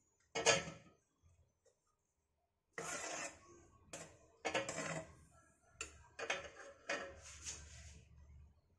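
Metal spoon scraping and clinking against a metal pan and a steel thali while thick semolina halwa is scraped out onto the plate. There is one sharp clink about half a second in, then after a short lull a run of scrapes and clinks.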